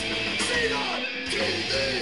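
Live crossover-thrash band playing loud: distorted electric guitar, bass and drums with a few falling slides in pitch.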